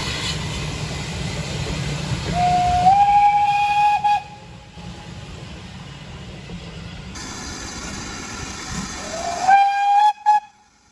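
Steam locomotive whistle blown twice, each blast sliding up in pitch and then holding a steady note, with a short extra toot after the second. Under it the locomotive hisses and rumbles as it works.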